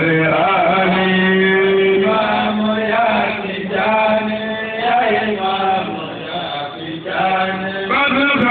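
Devotional praise chanting for a Sufi shaykh: a voice chanting long, held notes that waver and glide, briefly quieter about six to seven seconds in.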